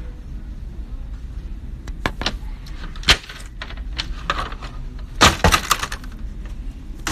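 Handling noise from a phone being moved about: several sharp knocks and rubs on its microphone about two, three and five seconds in, over a steady low rumble.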